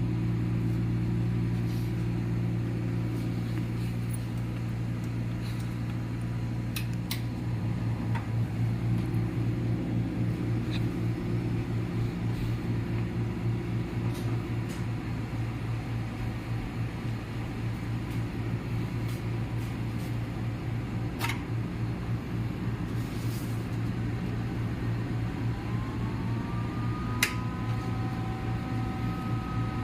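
A microwave unit running for a pyrolysis run: a steady electrical hum with fan noise, turning slightly pulsing partway through, with a few faint clicks. Near the end, several higher tones rise and then hold as a steady whine.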